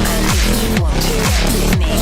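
Electronic dance music with a heavy bass that slides down in pitch on every beat, about two beats a second.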